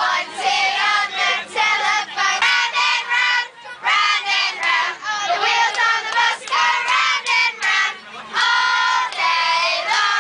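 Children's voices singing together, loud and high-pitched, in short phrases with brief breaks.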